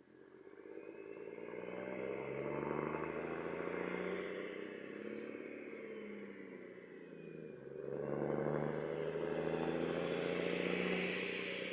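1975 Dodge Big Horn truck's KTA600 diesel pulling hard under acceleration. The engine note climbs, drops at a gear change about eight seconds in, then climbs again, growing louder as the truck approaches.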